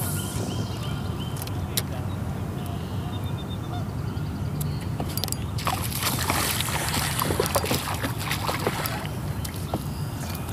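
A hooked gray trout (weakfish) splashing at the water's surface while a spinning reel is cranked, with a few sharp clicks of rod and reel handling, over a steady low motor-like hum. The splashing and rustle are strongest in the second half.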